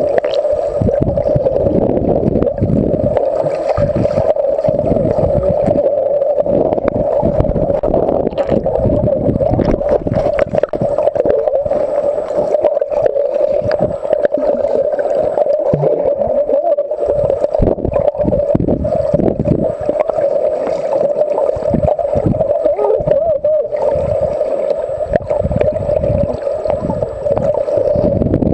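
Sound picked up underwater: a steady droning hum that holds one pitch throughout, over irregular low rushing and sloshing of water as the swimmer moves.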